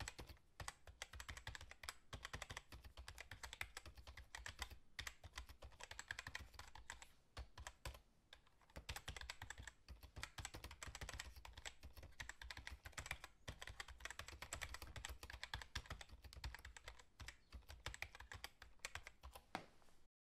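Faint, rapid keyboard typing: a quick run of key clicks with a few brief pauses. It is the sound effect for text being typed out on screen.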